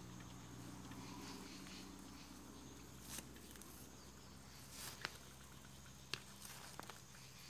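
Faint outdoor quiet over a low steady hum, broken by four light, sharp clicks and rustles from about three seconds in, as of small things being moved on the forest floor.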